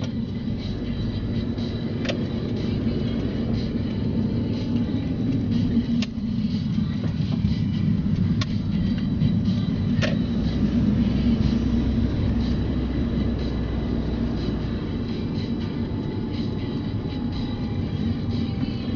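A car being driven on a road: steady engine and tyre hum, with a few sharp clicks or knocks scattered through it.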